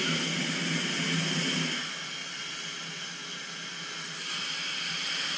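Steady hiss of breathing gas flowing through a chamber's oral-nasal breathing masks on corrugated hoses, louder for the first two seconds and again near the end. A low hum runs underneath until about two seconds in.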